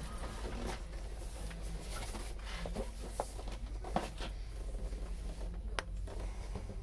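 A long cardboard box handled and tilted on a wooden surface: scattered light taps, rubs and scrapes of cardboard, the sharpest about four seconds in and near six seconds, over a steady low hum.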